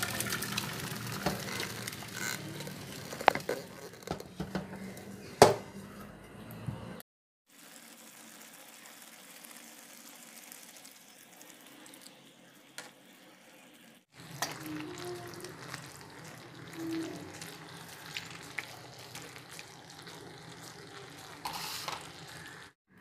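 Boiled rice and its water tipped from a pot into a steel colander, with several sharp metal knocks. After a cut, chicken and vegetable chop suey simmers and sizzles in sauce in a steel wok.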